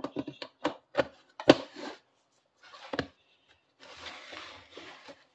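Hands handling a 3D-printed plastic FPV box goggle with a receiver mounted on top: a run of small clicks and knocks, the sharpest about a second and a half in and another about three seconds in, then a short rustle near the end.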